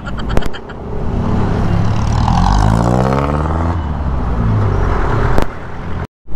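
Yamaha NMAX scooter's single-cylinder engine pulling away while riding: its pitch rises steadily for about a second and a half, then holds, over wind and road noise. The sound cuts out abruptly for a moment just before the end.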